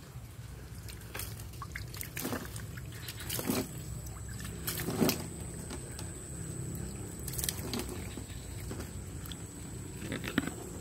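Shallow water in a small tub sloshing and splashing in a handful of separate bursts, the loudest about five seconds in.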